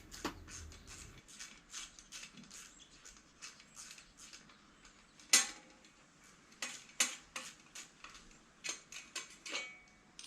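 Irregular metallic clicks and clinks of a bicycle bottle cage being unbolted from the frame, with a louder clank about five seconds in.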